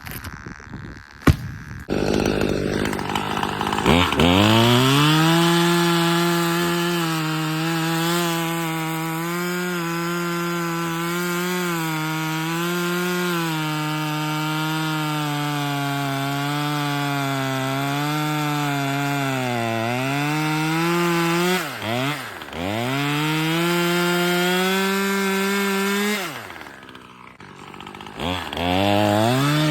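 Husqvarna 540XP top-handle two-stroke chainsaw revving up about four seconds in and running at high throttle while cutting wood, its pitch wavering under load. It briefly drops off throttle twice, then falls away and revs up again near the end.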